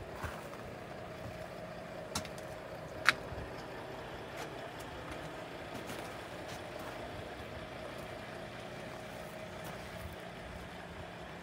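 Steady hum of a distant engine running, with a faint steady tone through it. A few sharp clicks break in, the loudest about three seconds in.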